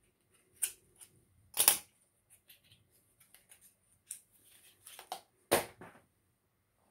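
Small cosmetic packaging being handled: light taps and rustles, with sharper clicks or knocks, the loudest a little under two seconds in and again about five and a half seconds in.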